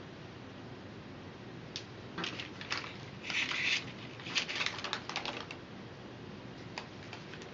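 Paper-backed sheet of flattened barley straws crackling and rustling as it is handled and lifted. The sound comes as a run of dry clicks and crinkles over a few seconds, then two lone clicks near the end.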